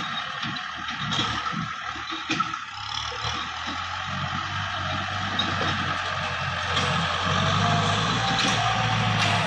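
Kubota M6240 tractor's four-cylinder diesel engine running under load while pushing soil with a front blade. It grows steadily louder from about a third of the way in as the tractor comes close.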